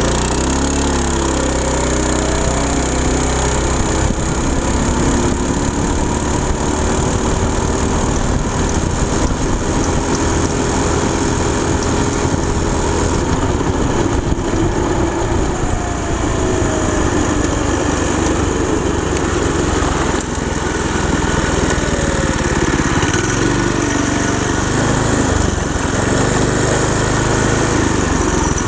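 A go-kart's small engine, driving through a torque converter, pulls hard from a standstill. Its pitch climbs over the first several seconds, then holds fairly steady as the kart runs on toward top speed.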